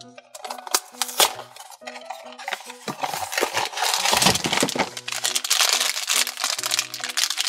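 A small cardboard blind box being handled and opened, then a black plastic foil bag pulled out and crinkled in the hands: irregular scraping, clicking and crackling, densest a few seconds in. Light background music with a simple melody plays underneath.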